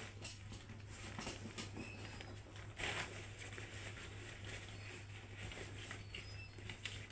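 Faint rustling and light clicks of small parts being handled, with one louder rustle about three seconds in, over a steady low hum.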